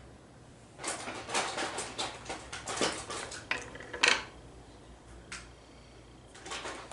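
Makeup containers and tools clicking and clattering as they are handled. There is a busy run of clicks for about three seconds, ending in one sharp, louder click, then a single click and another short clatter near the end.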